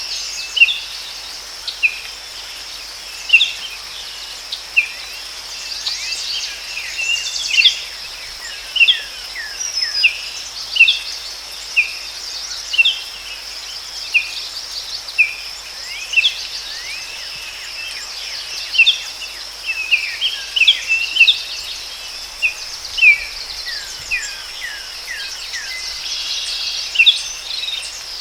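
Forest ambience: birds calling in short, sharp chirps, many falling in pitch, about one or two a second, over a steady high-pitched insect drone.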